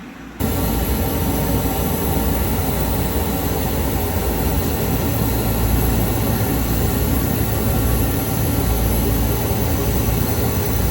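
Workshop laser cutter setup running: a loud, steady whirring of fans and air pump that cuts in sharply about half a second in and holds level.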